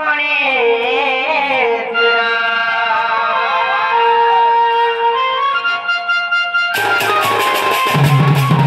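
Sambalpuri folk music for a Danda Nrutya: a wavering, ornamented melody over held harmonium notes, then, about seven seconds in, dhol and other drums come in with a fast, steady beat.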